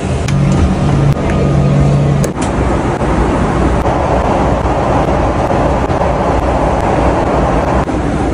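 Airliner cabin noise in flight: a loud, steady rush of air and engine noise. A low hum sits under it for the first two seconds, and there is a sharp click just after two seconds in.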